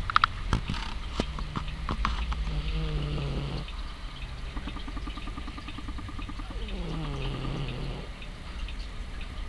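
Domestic cat snoring in its sleep: two slow breaths, each a low rattling snore that slides down in pitch as it ends. A few sharp clicks come in the first couple of seconds.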